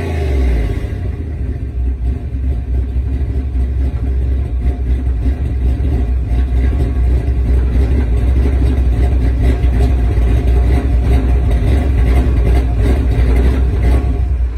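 Ford 302 (5.0 L small-block) V8 in a 1987 Ford Ranger, heard from behind at the exhaust. A blip of revs falls away right at the start, then the engine settles into a steady, deep idle.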